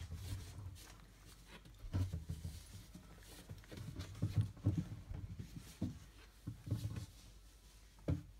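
27-day-old Entlebucher puppies moving about, with irregular soft thumps and faint scratchy clicks.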